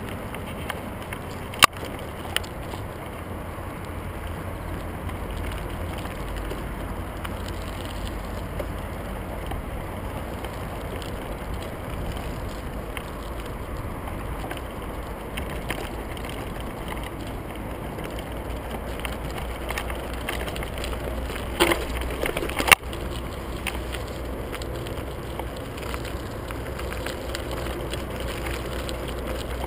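Mountain bike rolling over a rough gravel dirt track: a steady low rumble of tyres on stones and wind, with a sharp knock about two seconds in and a short clatter of knocks a little past twenty seconds as the bike jolts over the ground.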